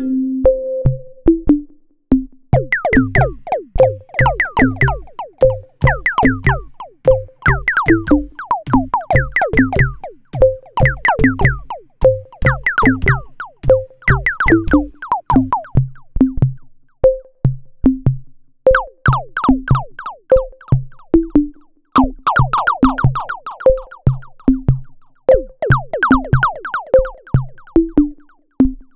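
Electronic music from a modular synthesizer: a steady drum-machine beat with low kick thumps and short plucked synth notes that fall quickly in pitch.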